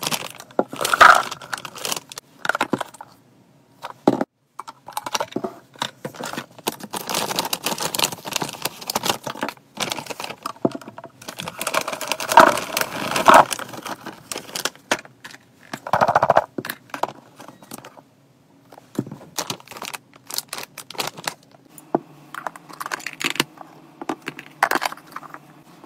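Freeze-dried chicken necks and cat treats clattering and clinking into a glass jar, mixed with paper and foil pet-food pouches rustling and crinkling, in irregular bursts.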